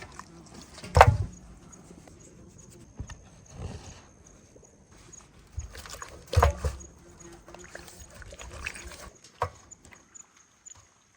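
Two loud knocks about five seconds apart, with a few lighter knocks and handling noises between them, over a faint, evenly repeating high chirp.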